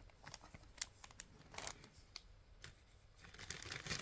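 Faint scattered clicks and light rustling of glass bead strands and their packaging being handled.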